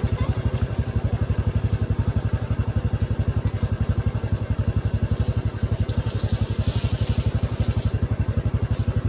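A small engine idling steadily nearby, a low, even beat of about ten pulses a second.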